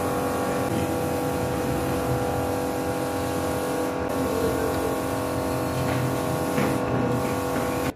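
A steady machine hum with several held tones, with a few faint clicks from a plastic phone-holder clamp being handled, mostly near the end.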